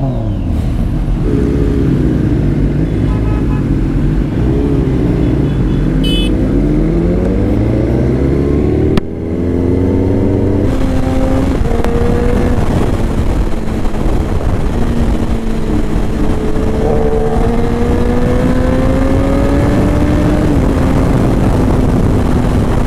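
Several sport motorcycle engines revving and blipping together, their pitch swinging up and down. After a cut about nine seconds in, one motorcycle engine running under way with wind rushing past, its note stepping between gears and then climbing slowly before dropping near the end.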